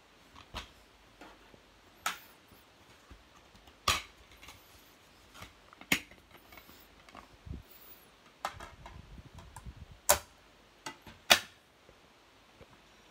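Several sharp plastic clicks and snaps from a DVD case being opened and the disc unclipped from its hub and put into a portable DVD player, with a stretch of rustling handling about two-thirds through; the loudest snaps come near the end.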